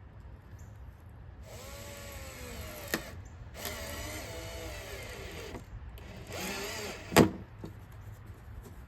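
Cordless power screwdriver driving screws in three short runs, its motor pitch sagging and rising under load. There is a sharp click near the end of the first run and a loud crack near the end of the last.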